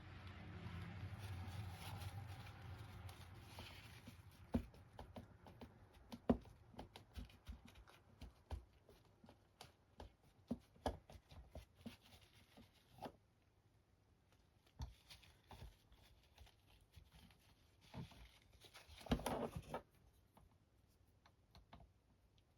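Quiet rustling, then scattered small clicks and taps of painting materials being handled on a work desk, with a short louder rustle near the end.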